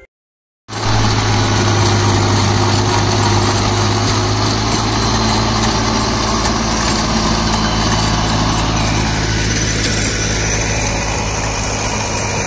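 New Holland 5500 diesel tractor running steadily under load, driving a Shaktiman rotary tiller through soil: a constant low engine hum under a dense rushing noise. It starts suddenly after a brief silence.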